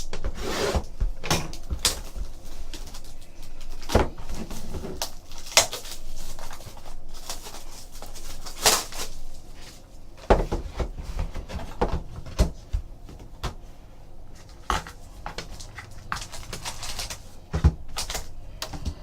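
Trading card box and foil packs being opened and handled: irregular rustling, crinkling and tearing of cardboard and wrappers, with sharp clicks and scrapes.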